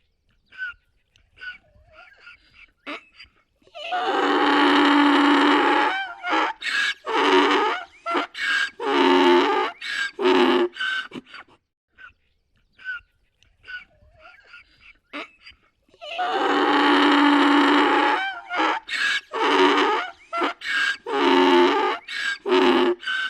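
Donkey braying twice. Each bray starts with a long drawn-out note and goes on into a run of short, rhythmic hee-haw calls. Faint short sounds fall between the two brays.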